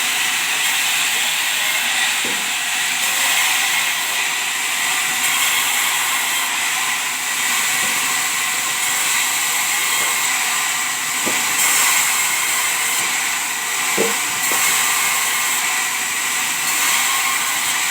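Sawmill machinery running steadily while sengon logs are processed, a continuous high hiss with a few faint knocks.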